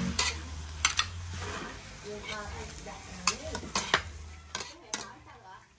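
A metal ladle and spatula clank and scrape irregularly against a steel wok as noodles and greens are stir-fried, over a faint sizzle.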